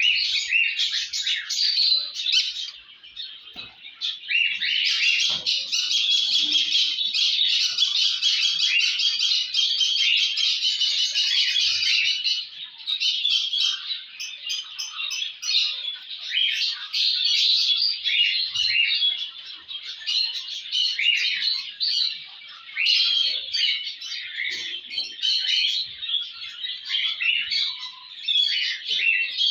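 Many small cage birds chirping and chattering together in a continuous, overlapping chorus of quick high-pitched calls.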